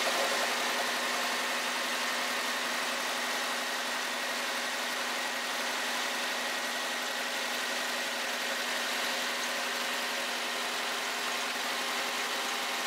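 2000 Honda Accord's four-cylinder engine idling steadily, heard from under the hood near its newly installed exhaust headers.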